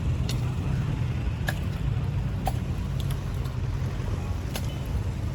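Engine running steadily with a low rumble, with a few light knocks or clicks over it.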